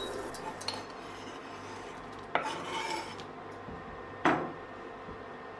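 Wire whisk scraping and stirring in a stainless steel saucepan of warming pear juice, sugar and syrup. About two seconds in, chopped chocolate is scraped off a wooden cutting board into the pot with a rattling scrape, and just over four seconds in comes one sharp knock.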